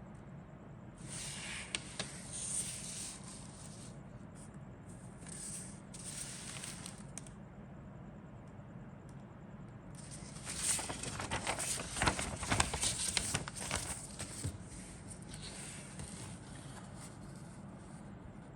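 Plastic bags crinkling and rustling as model kit parts are handled, in several bursts with small clicks. The loudest burst comes about ten to fourteen seconds in.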